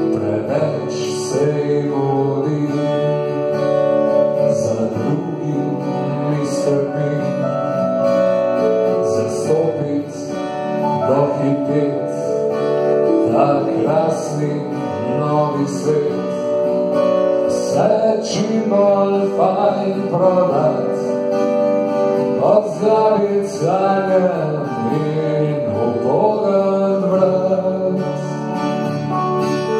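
Live acoustic guitar strumming with keyboard accompaniment, and a man singing over it, his voice strongest from about ten seconds in.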